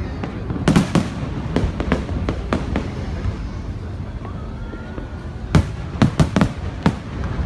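Fireworks display: aerial shells bursting in irregular bangs, a cluster about a second in, more around two to three seconds, and a quick run of louder bangs near the end, over a steady low rumble.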